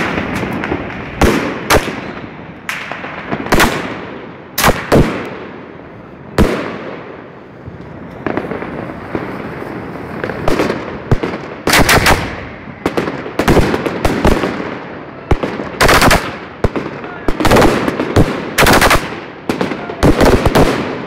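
Aerial fireworks exploding overhead: a string of loud, sharp bangs with crackling in between. The bangs are spaced a second or more apart in the first half and come thick and fast in the second half.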